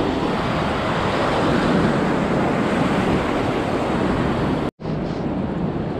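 Ocean surf breaking and washing up on the beach, a steady rush of water with wind on the microphone. The sound cuts out abruptly for an instant near the end, then a similar rushing noise carries on.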